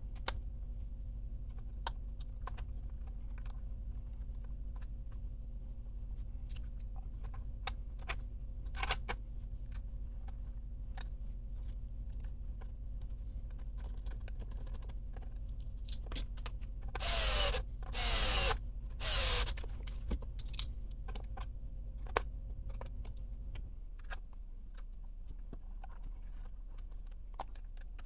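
Small hard parts clicking and clattering as they are handled, with three short runs of a small electric motor about two-thirds of the way in, its whine sweeping in pitch. A low steady hum stops near the end.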